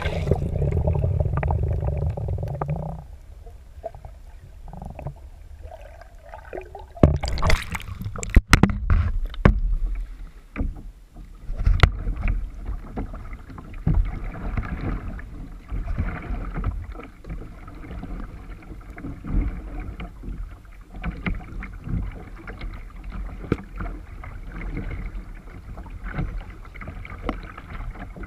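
Kayak paddling: water splashing and lapping with paddle strokes, heard from water level. For the first few seconds it is a muffled rumble with the microphone underwater. A few loud splashes follow about seven to nine seconds in, then a run of small uneven splashes.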